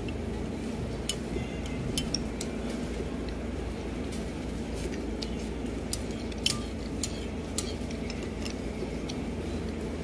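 Scattered light clinks of cutlery and dishes over a steady low background hum, the sharpest about six and a half seconds in.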